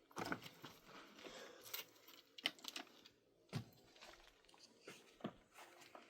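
Faint, irregular clicks and light knocks, a handful spread over a few seconds, with a slightly louder dull knock about three and a half seconds in.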